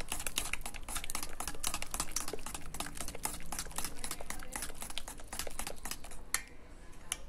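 A fork beating thick pancake batter of flour, milk and eggs in a metal bowl: rapid clicking and tapping of metal against the bowl, thinning to a few clicks about six seconds in.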